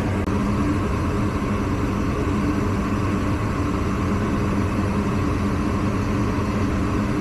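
Steady engine and road noise of a vehicle being driven, heard from inside the cabin: an even low rumble with a constant hum.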